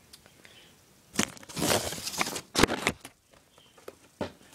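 Paper rustling and crinkling as sheets of paper, including the invoice, are pulled out of a cardboard shipping box, in a few bursts with sharp crackles, the loudest in the middle.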